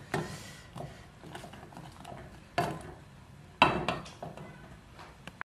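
A spoon stirring chocolate pudding mixture in a metal saucepan, scraping and knocking against the pan several times, the strongest strokes about two and a half and three and a half seconds in.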